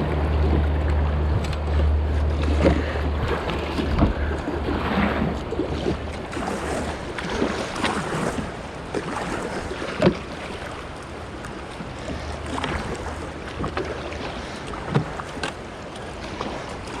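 A kayak on a moving river: water rushing with a few sharp knocks, and wind buffeting the microphone for the first several seconds.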